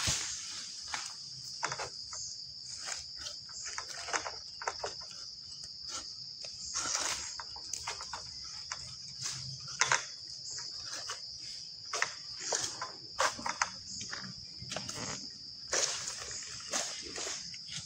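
Insects droning with a steady high-pitched buzz, crossed by many irregular rustles and snaps of vegetation.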